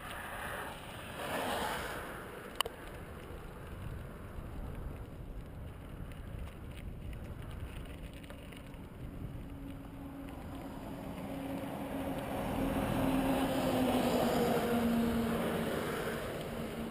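Bicycle rolling over a gravel trail, a steady tyre rumble with wind on the microphone and a single sharp click early on. From the middle onward a motor vehicle on the road alongside swells over several seconds to the loudest point and drops in pitch as it passes.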